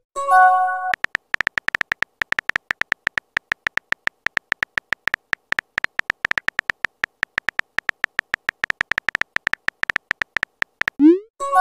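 Simulated phone-keyboard typing clicks, a rapid irregular patter of taps. About half a second in a short chime of several tones sounds, and near the end a quick rising swoosh of a message being sent leads into another chime.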